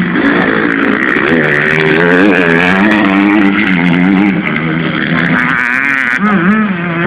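Dirt bike engine revving as the bike rides the motocross track, its pitch rising and falling repeatedly as the throttle opens and closes.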